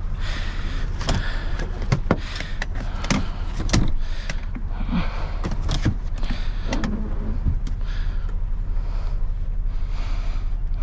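Scrap metal pieces knocking and clanking as they are handled and loaded into a van: a string of irregular sharp knocks over a steady low rumble.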